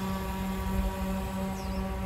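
Radio-controlled model ferry's motors running, a steady hum with a low rumble under it.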